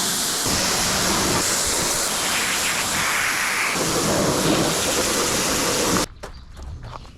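Pressure washer spraying water, a loud steady hiss that cuts off abruptly about six seconds in, followed by a few quiet clicks.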